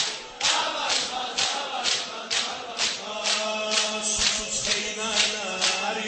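A crowd of men chanting a mourning lament (noha) together over rhythmic chest-beating, about two sharp strikes a second. From about halfway a single voice holds one long sung note.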